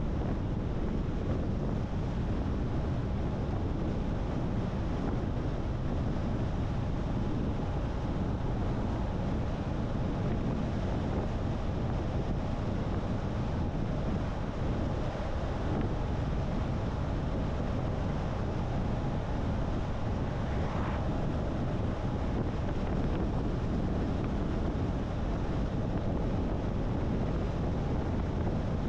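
Steady driving noise from a car on the road: low tyre rumble mixed with wind, even and unbroken.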